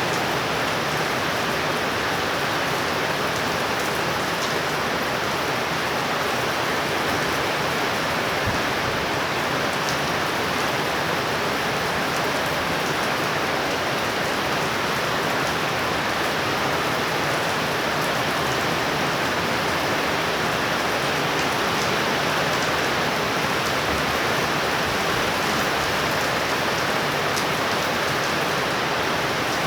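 Heavy rain falling steadily from thunderstorm feeder bands.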